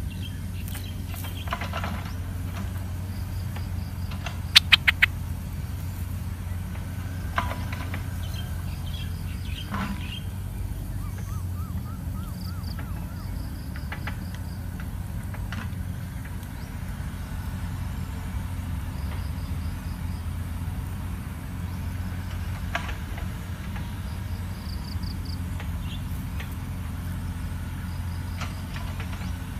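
Outdoor ambience: a steady low rumble of distant road traffic under scattered short bird chirps and small high insect trills. A quick run of four sharp clicks about four and a half seconds in is the loudest sound.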